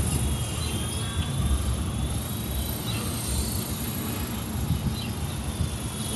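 Electric Honeybee FP fixed-pitch RC helicopter in flight: a thin, high motor whine that wavers up and down in pitch as the throttle changes, over a steady low rumble.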